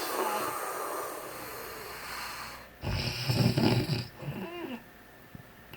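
A person snoring heavily. A long breathy draw is followed about three seconds in by a loud, low snore lasting about a second, which ends in a short whistling wheeze.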